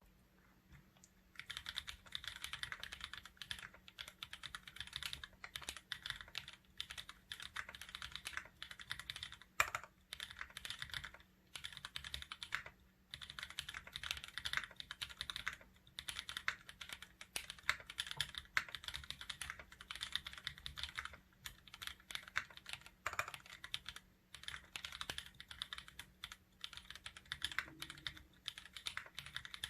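Typing on an AL-60 mechanical keyboard with lubed linear switches (Kailh Burgundy stems in Gateron milky yellow housings, Gateron yellow springs), a carbon fiber plate with a silicone dampening pad, and GMK Oblivion keycaps. Rapid keystrokes begin about a second and a half in and run on in bursts with short pauses.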